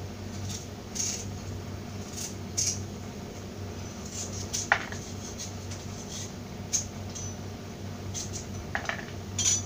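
Kitchen knife cutting ginger and garlic cloves on a plastic cutting board: scattered light taps of the blade on the board, irregularly spaced, over a low steady hum.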